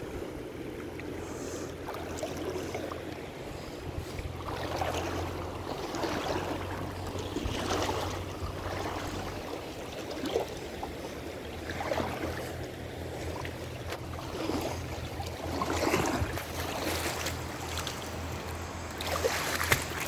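Small creek running over stones, a steady wash of water, with irregular rustling and handling noise from a handheld camera being moved about.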